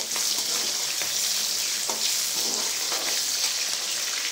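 Chopped small onions (shallots) sizzling in hot oil in a kadai, with a steady hiss, while a perforated metal ladle stirs them and scrapes the pan now and then.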